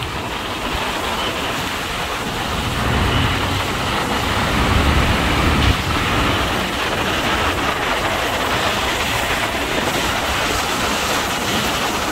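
Steady rumble and hiss of a vehicle moving through city road traffic, swelling a little between about three and six seconds in.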